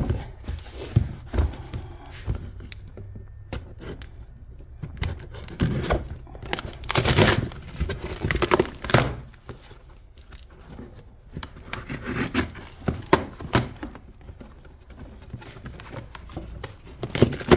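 A knife slicing through a cardboard parcel box and the cardboard being ripped open by hand, in irregular scrapes and tears that are loudest in the middle and again near the end.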